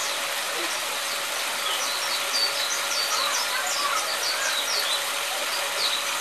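Small songbirds chirping, many quick high notes coming thick and fast from about two seconds in, over a steady background hiss.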